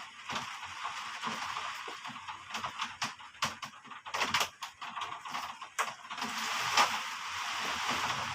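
Heavy rain falling, a steady rush with many close drops striking as sharp ticks; the rush swells louder about six seconds in.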